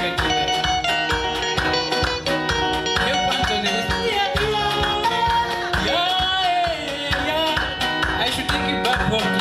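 Band music with a steady beat, and a voice singing a wavering line in the middle.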